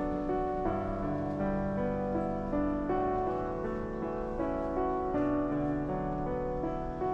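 Background music: gentle piano playing a slow melody with chords.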